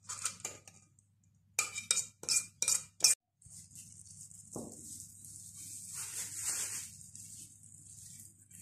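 A metal pot and spoon knocking and scraping several times as thick chocolate sauce is poured from the pot and spread over a dessert in a glass dish. After a sudden break a soft steady hiss follows.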